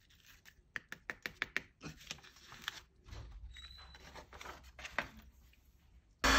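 Paper tag and sheet of paper being handled as loose embossing powder is tipped off: a quick run of light taps and rustles, then softer shuffling. Near the end an embossing heat gun switches on with a sudden loud, steady blowing.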